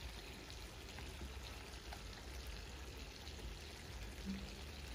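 Zirvak (meat, onion and carrot broth) with freshly added mushrooms simmering and sizzling faintly in a cast-iron kazan: an even low hiss with scattered small pops.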